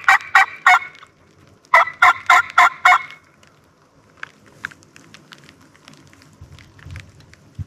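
Loud, raspy turkey yelping, about six sharp notes a second: a run that ends about a second in, then after a short pause a second run of five yelps.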